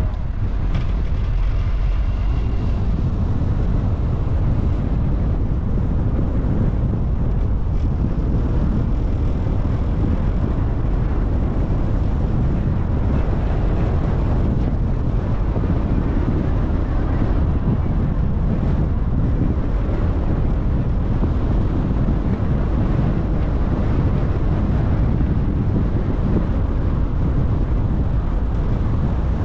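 Steady low rumble and rushing noise of a moving vehicle, even throughout.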